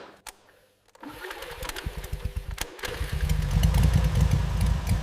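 1969 Triumph Bonneville T120R's 650 cc parallel-twin engine starting and running, its firing a fast steady pulse that gets much louder about three seconds in.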